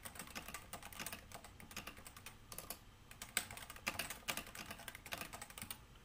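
Typing on a Cooler Master CMStorm Novatouch TKL keyboard with Topre hybrid capacitive switches: a quick, uneven run of keystrokes that stops near the end.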